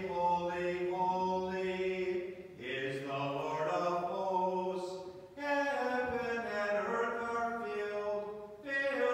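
Unaccompanied Byzantine liturgical chant: a voice sings long held notes in about four phrases, each with a short break between them.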